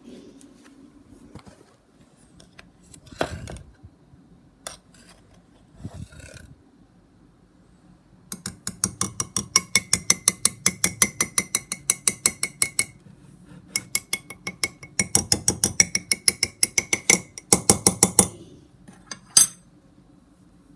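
A spoon stirring in a ceramic mug, clinking against its sides about five times a second in two runs of several seconds each, with a short break between them and a faint ringing note under the clinks. A few scattered soft knocks come before the stirring starts.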